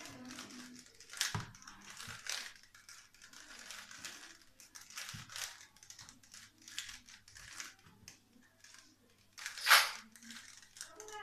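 3x3 Rubik's cube being twisted rapidly by hand to scramble it: its plastic layers turn with irregular clicking and clattering, with one much louder clack near the end.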